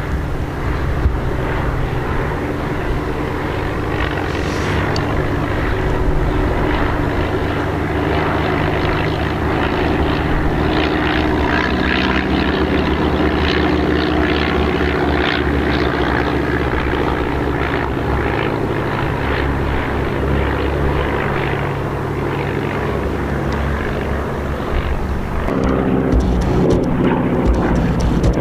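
Piston-engined propeller aircraft flying overhead, a steady engine drone that swells and fades as the planes pass. About 25 seconds in, a different, deeper-toned piston engine takes over.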